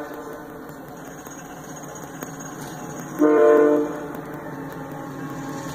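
BNSF diesel locomotive's multi-note air horn sounding one blast of just under a second, about three seconds in, over a steady background rumble.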